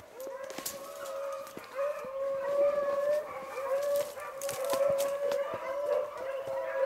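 Beagles baying as they run a rabbit: a continuous string of short, overlapping hound bawls from more than one dog.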